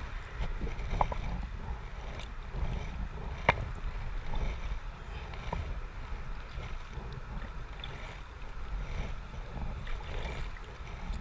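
Kayak paddles dipping and splashing in river water, over a steady low rumble, with a few sharp clicks, the loudest about three and a half seconds in.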